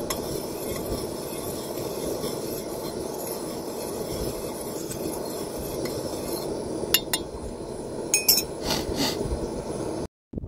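Metal teaspoon stirring milk in a stainless steel saucepan over a gas canister camping stove, with the burner's steady hiss underneath. The spoon clinks against the pan a few times in the second half, and everything cuts off abruptly just before the end.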